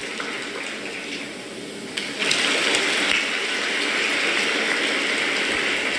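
Audience applauding in a large hall, the clapping growing louder about two seconds in.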